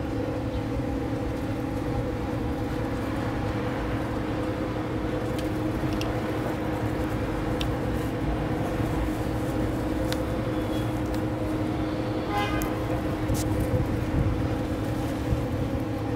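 A steady motor hum with a few faint ticks.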